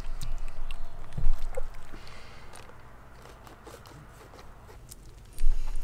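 Wet, sticky handling of a raw giant Pacific octopus's innards: scattered small clicks and squelches as the organs are pulled apart by hand, with two low thumps, one about a second in and one near the end.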